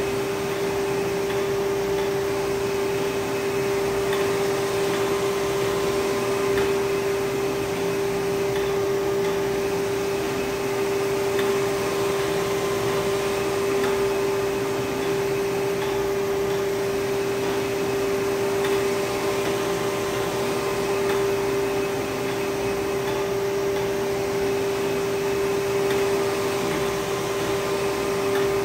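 Océ Arizona flatbed printer running as it prints: a steady hum with one constant mid-pitched tone over an even whirring hiss.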